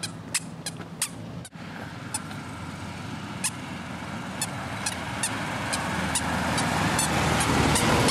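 A toddler's squeaker shoes chirping with his steps: short, high squeaks every third to half second, thinning out for a couple of seconds after the first second and a half, then regular again. Under them, the noise of a passing vehicle grows steadily louder toward the end.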